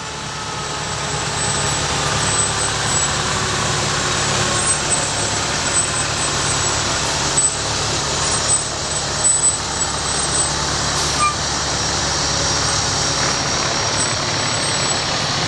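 Heavy fire trucks rolling slowly past: the steady engine rumble and road noise of a Pierce heavy rescue truck going by close, with an aerial ladder truck coming up behind.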